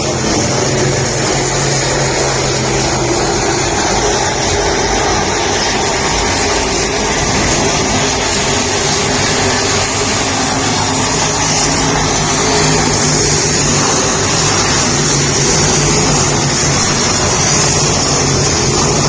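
A motor vehicle engine running steadily, a constant low drone over a broad rush of noise.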